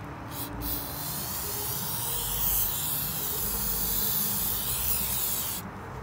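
Aerosol can of starting fluid spraying with a steady hiss into the gap between a lawn tractor tire's bead and its rim for about five seconds, then cutting off suddenly. It is the priming step for lighting the ether to pop the bead onto the rim.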